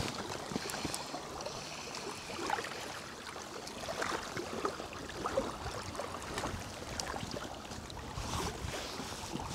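Wind and small waves lapping on a reservoir shore, a steady rushing wash, with faint scattered handling noises.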